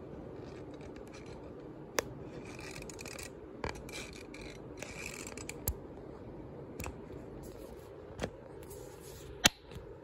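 Casablanca Delta II ceiling fan running at speed with a steady low hum. It is overlaid by a handful of sharp clicks at uneven intervals, the loudest near the end, and bursts of scratchy rubbing.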